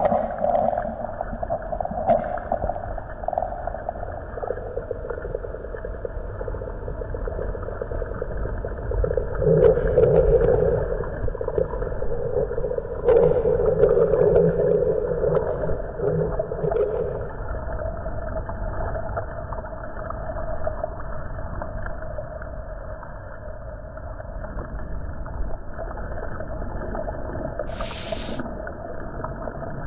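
Sustained, moaning drone tones that hold steady. They swell louder about ten seconds in and again for several seconds from about thirteen seconds in, with one short click near the end.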